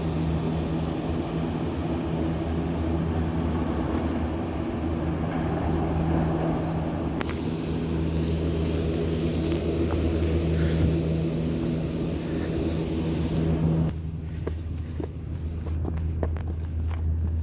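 A steady engine hum, with a hiss over it that stops abruptly about fourteen seconds in while the low hum carries on.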